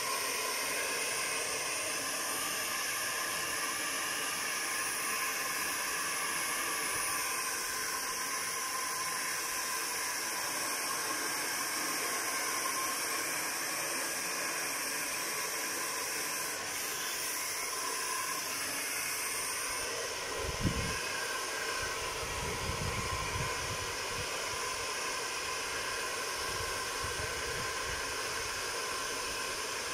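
Handheld hair dryer running steadily, a constant rushing hiss of blown air as it dries a dog's coat. About two-thirds of the way in the hiss changes in tone, with a short knock and some low rumbling.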